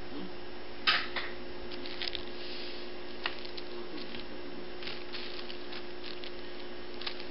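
Short rustles and scrapes of paper as a hand plays with a kitten lying on paper sheets, the loudest about a second in, over a steady hum.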